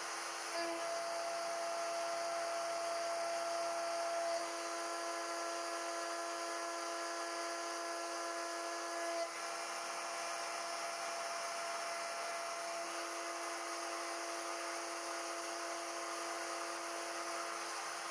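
CNC-Step High-Z S-720/T router milling metal with a small end mill: the spindle runs with a steady whine made of several held tones over a steady hiss. The set of tones shifts about 4, 9 and 13 seconds in.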